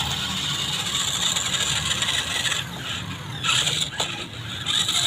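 Two toy RC rock crawlers' electric motors and gearboxes whirring steadily as they strain against each other on a tow strap. The sound shifts in the middle, and there is a sharp click about four seconds in.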